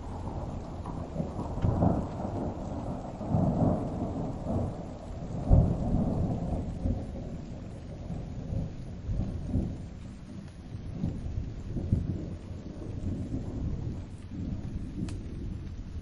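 Thunder rumbling in long rolling waves over rain, the loudest swell about five and a half seconds in, then easing into a lower, steadier rumble.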